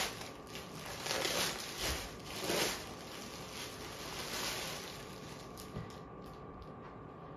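Rustling of cloth as clothes are handled and unfolded, in several bursts over the first few seconds, then quieter.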